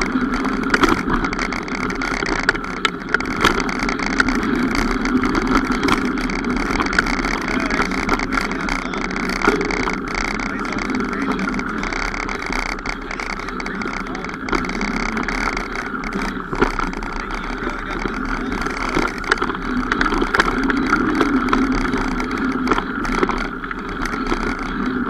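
Mountain bike being ridden on a trail: a steady rushing ride noise with frequent small clicks and rattles throughout.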